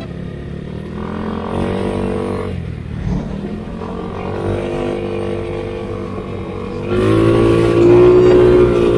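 Scooter engine running while riding, with a low rumble of wind on the microphone. It gets louder about seven seconds in as the throttle opens.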